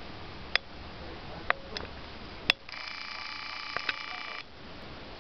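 A camera's zoom motor whining steadily for under two seconds, then stopping abruptly, after a few sharp clicks from handling the camera.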